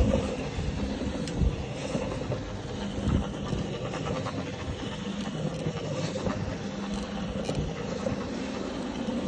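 Single-disc rotary floor scrubber running steadily, its brush churning through a soap-foamed rug with a constant motor hum and wet scrubbing swish. A couple of brief thumps in the first few seconds.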